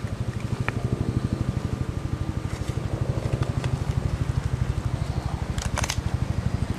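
Campfire wood crackling, with sharp pops, a cluster of them near the end, over a steady low rapid pulsing drone.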